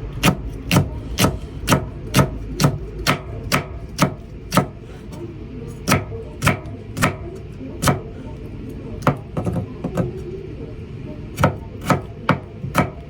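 Kitchen knife slicing Japanese green peppers on a cutting board: a steady run of crisp cuts about two a second, with short pauses and a quicker flurry about nine seconds in, over a low steady background hum.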